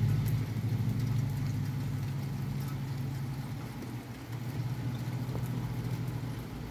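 A car engine running and fading away as the vehicle moves off. Steady rain hiss with scattered drop ticks is left once it has gone, near the end.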